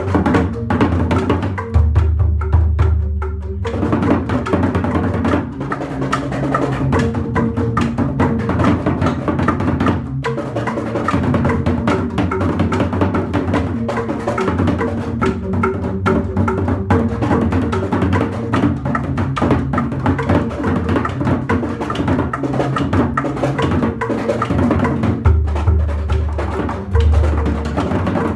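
Balinese gamelan jegog, an ensemble of tuned bamboo tube instruments, playing a piece: fast, dense struck notes over deep bass notes, which ring out strongest about two seconds in and again near the end.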